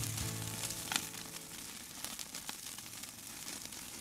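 Beef burger patties sizzling on a charcoal grill grate, a fine crackle with small pops. Background music ends about a second in, around a single sharp click.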